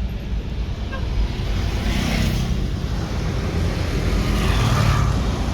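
Road traffic going by: a continuous low rumble, with swells as vehicles pass about two seconds in and again near the end.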